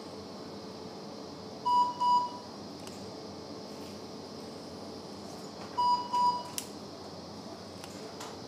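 LigaSure vessel-sealing generator beeping as the handpiece seals tissue: two quick beeps at a time, twice, about four seconds apart, the double beep that signals a completed seal. A sharp click comes just after the second pair.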